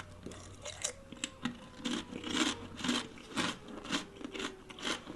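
A person chewing crunchy food close to the microphone, crunching about twice a second.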